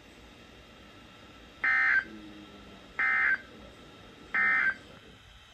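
Three short bursts of Emergency Alert System SAME digital data tones, each about a third of a second long and about 1.3 seconds apart: the end-of-message signal closing a severe thunderstorm warning.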